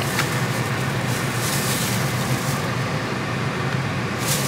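Steady vehicle hum heard from inside a car's cabin, a low even drone under a wash of noise.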